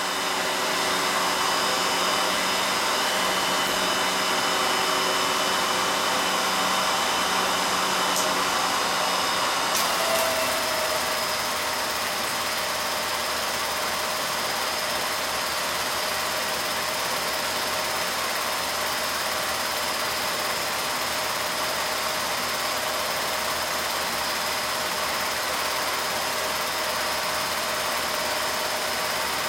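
Film projector running: a steady motor and fan whir with a few held tones, which shift slightly after a couple of faint clicks about ten seconds in.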